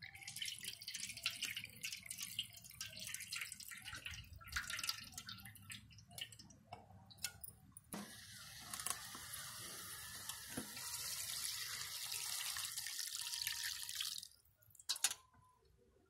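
Tamarind water dripping and splashing as it is strained through the fingers from a steel bowl. About eight seconds in, it is poured into an aluminium pot of fried murrel fish, giving an even, steady hiss for about five seconds that stops suddenly, followed by a couple of knocks.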